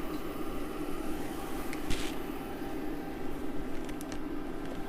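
A pot of water coming to the boil on a cooktop turned up to maximum, giving a steady low rumbling hiss. A single light click about two seconds in.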